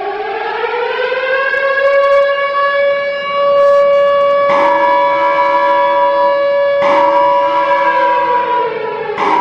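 Colorado Avalanche 2001 arena goal horn: a loud siren-like wail that winds up in pitch and holds a steady tone. A second, lower horn tone cuts in about four and a half seconds in and again about seven seconds in. The wail winds down shortly before the end and starts rising again at the very end.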